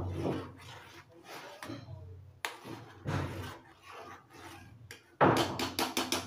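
A metal spoon stirs and scrapes in a metal pot of hot milk that is curdling into chhena with vinegar, knocking against the pot. About five seconds in comes a louder clatter of quick clinks.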